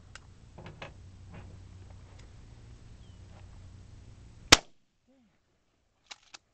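A single shot from a Browning BPS 12-gauge pump-action shotgun about four and a half seconds in. About a second and a half later come two quick clicks as the pump action is worked back and forward.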